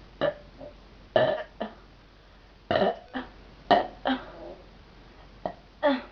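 A girl forcing out a string of about ten short burps, each well under half a second, coming roughly in pairs.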